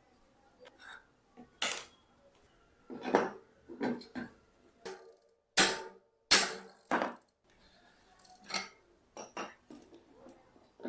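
Metal hand tools and bicycle parts clinking and knocking as they are handled, a string of separate sharp strikes at uneven intervals, a few of them ringing briefly.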